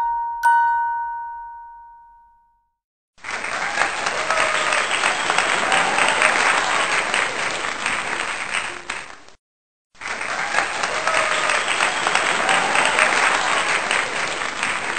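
A glockenspiel-like chime note rings out and dies away. After a short silence a crowd's applause starts abruptly, breaks off for about half a second midway, and starts again.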